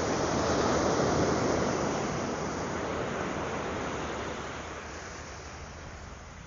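Surf on a sandy beach: a wave breaks and washes in, swelling about a second in and then fading away over the next few seconds.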